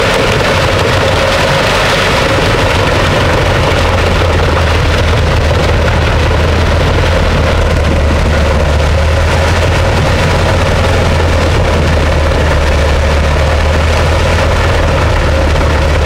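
Heavy wood chipper engine running steadily and loudly, with a deep hum that grows stronger about four seconds in.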